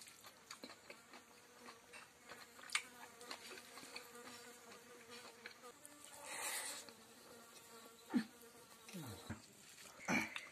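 A fly buzzing close by, steady at first, then its pitch sweeping down as it passes near, around two-thirds of the way in. Under it come small clicks and wet smacks of rice being mixed by hand and eaten.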